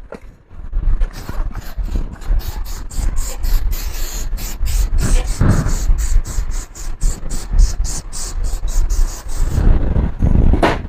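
Quick back-and-forth scrubbing strokes on a laptop's casing during cleaning, about three to four strokes a second, stopping near the end.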